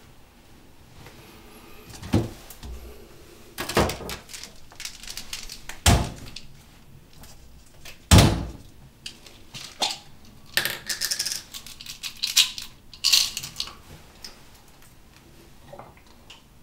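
Bathroom handling sounds: four heavy knocks and thuds of a cabinet being opened and searched, about two seconds apart, then a few seconds of quick rattling and clicking from a plastic pill bottle being handled.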